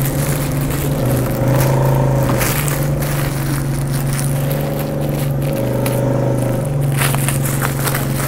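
Plastic wrapping of a pyjama package crinkling and rustling as it is handled and opened. Under it runs a loud steady low drone that steps to a new pitch every second or two.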